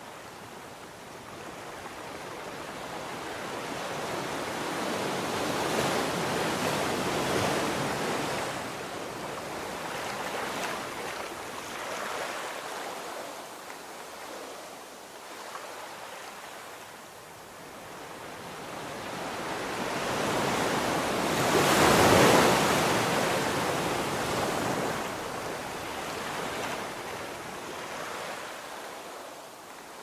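Ocean surf washing up a sandy beach: the noise of breaking water swells twice, a moderate wave in the first third and a louder one about two-thirds of the way through, each fading as the water runs back.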